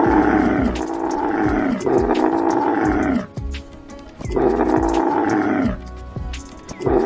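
An animal giving long, rough calls, each about a second and a half long and falling in pitch, three in a row with short gaps, a fourth starting near the end. Background music with a steady beat plays underneath.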